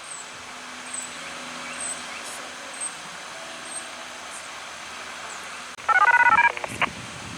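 A radio scanner's speaker blurts out a rapid sequence of short dual-tone beeps: the siren system's activation tones being received as the test begins. These are the loudest sound, coming about six seconds in over a steady hum of road traffic.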